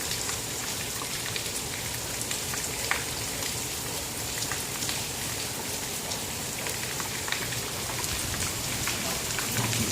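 Steady rain falling during a thunderstorm, with many scattered drops ticking sharply close by.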